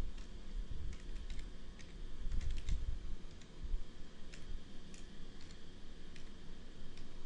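Typing on a computer keyboard in irregular keystrokes while entering a login ID and password, denser in the first half and thinning out toward the end.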